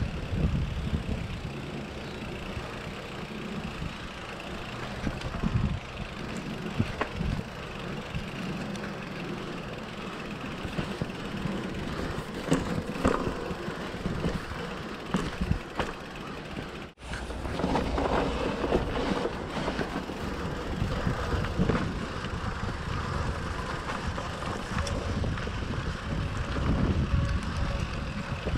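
Wind buffeting the microphone, with the rattling and irregular knocks of a bike rolling over a rough dirt trail. The sound drops out for an instant about 17 seconds in.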